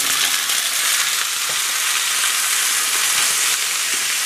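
Freshly cleaned mussels sizzling loudly as they are tipped into hot oil with garlic and bay leaf in a frying pan: a steady hiss. A few light clicks of shells and a wooden spoon against the pan.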